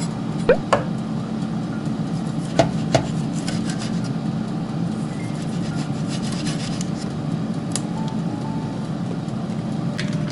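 Chef's knife slicing sausages on a wooden cutting board: a few sharp knocks of the blade on the board, a pair about half a second in, another pair near three seconds and one near eight seconds.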